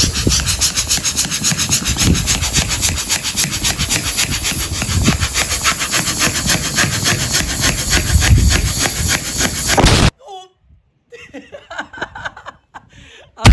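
Small plastic hand balloon pump being worked fast to inflate a balloon: rapid, even rushing strokes of air, about five a second, that stop abruptly about ten seconds in.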